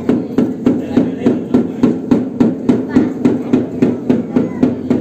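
Steady rhythmic percussion beating, about four even strikes a second, each with a short low ring.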